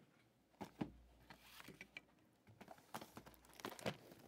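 Faint handling of sealed cardboard trading-card hobby boxes being picked up and set down: a few soft knocks and light rustles.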